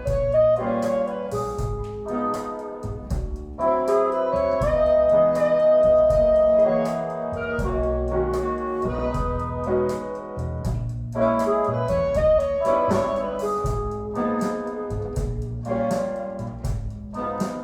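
Instrumental music, jazz-like, with held melody notes over a bass line and regular cymbal-like ticks, played back through a Tsakiridis Aeolos tube amplifier driving Qualio IQ loudspeakers.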